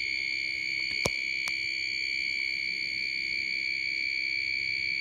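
Small beeper driven by a 555 timer oscillator, sounding a steady high-pitched tone with an overtone an octave above. A sharp click comes about a second in, and a fainter one half a second later.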